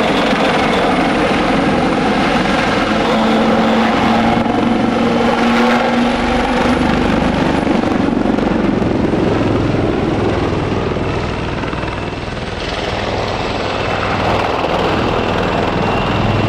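A pair of AgustaWestland Wildcat helicopters flying a display: loud, steady rotor and turbine noise, with its tones sliding in pitch around the middle.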